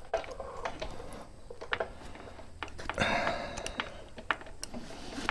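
Chain breaker tool being turned by hand to press a rivet pin out of a motorcycle O-ring chain: scattered light clicks and brief rustles of the tool being worked.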